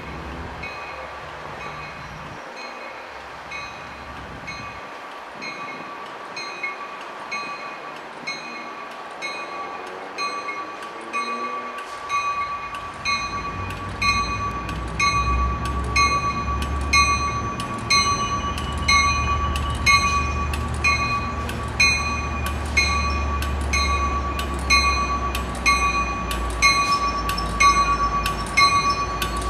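Arriving commuter train's bell ringing over and over, a little over one strike a second, growing louder as the train approaches. From about halfway a low rumble of the arriving train rises beneath it.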